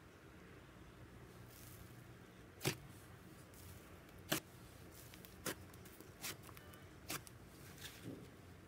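Butter slime being pressed flat and stretched by hand, giving about six short, sharp pops and clicks spaced roughly a second apart over a faint steady hum.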